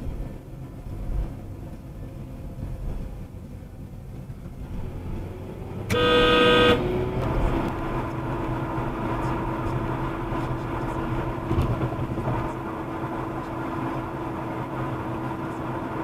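A car horn sounds once for just under a second, about six seconds in, over the steady road and engine noise of a car driving. After the horn the road noise is louder, with a steady hum.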